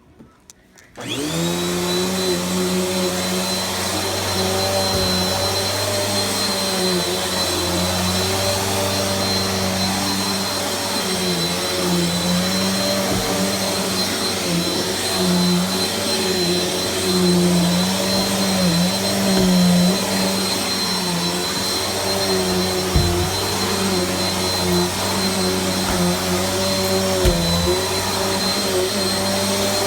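Vacuum cleaner switched on about a second in, then running steadily with a high whine over a lower hum that wavers slightly in pitch, with a few light knocks.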